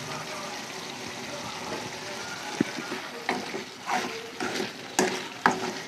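Ivy gourd curry sizzling in an aluminium kadai, then from about halfway a steel spatula stirring it, with several sharp knocks and scrapes against the pan.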